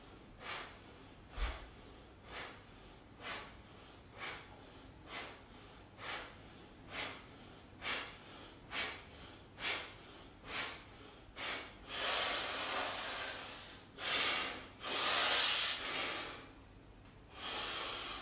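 A man breathing out sharply and rhythmically during a cardio workout, about one short exhalation a second. About two-thirds of the way through, the breaths give way to three longer, louder, heavy breaths.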